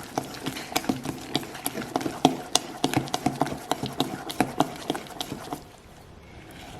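Ladle stirring thick, fermented idli and dosa batter, knocking and clinking against the container several times a second, with squelches of the batter. It stops about five and a half seconds in.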